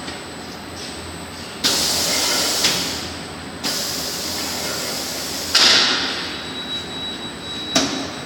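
Semi-automatic shrink-wrapping machine running with a steady hum, broken by two sudden hissing bursts of about two seconds each, the second fading away, and a sharp clack near the end.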